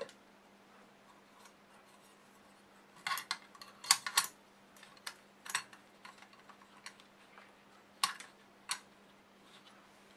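Clicks and knocks of a DQ542MA stepper driver's casing being fitted over its circuit board and handled on a workbench, a quick cluster about three to four seconds in and a few single knocks later.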